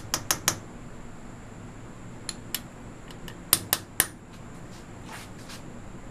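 Brass hammer tapping a punch to drive small drive screws into a lathe's headstock plate: sharp metallic taps in quick groups of two or three, the hardest strikes a little past the middle.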